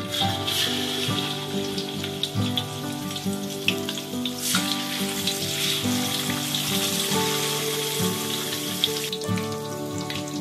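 Pomfret fish frying in hot oil in a steel wok: a steady sizzle with scattered small pops, easing slightly near the end. Background music plays under it.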